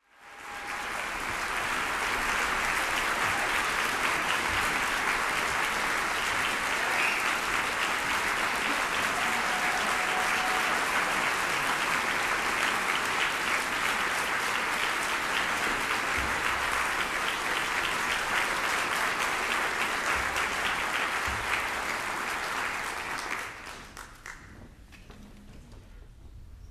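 Audience applauding steadily in a concert hall. The clapping dies away about three seconds before the end, leaving faint stage noise.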